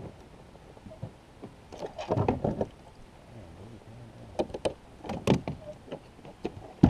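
Knocks and clatter against a kayak hull as a fish and fishing gear are handled: a cluster of clattering about two seconds in, a few single knocks later, and the sharpest knock near the end.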